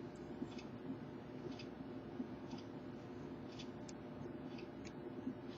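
Faint ticking of a clock, about one tick a second, over a steady low hum, with a few sharper small clicks of tools working the glued charger assembly loose from the phone.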